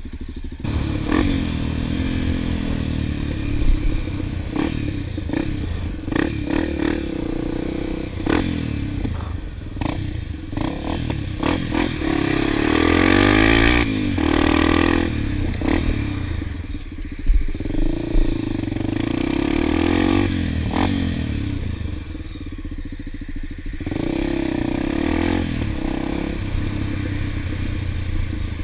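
Single-cylinder dual-sport motorcycle riding off and accelerating, engine pitch rising and falling as it goes through the gears and is loudest about halfway through, with scattered knocks and rattles from the bike over bumps.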